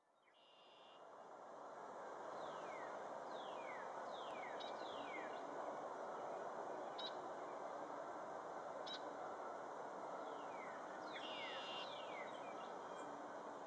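Songbirds calling, with repeated short whistled notes sliding downward and a few brief high chirps, over a steady background rush. The sound fades in over the first two seconds.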